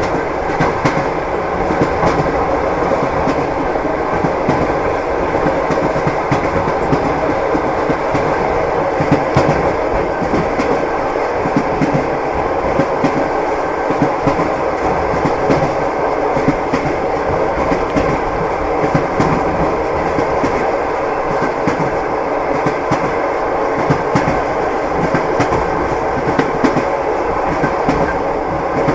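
Steady clickety-clack of a passenger train's wheels over rail joints, heard from inside a compartment, over a constant rumble of the moving carriage.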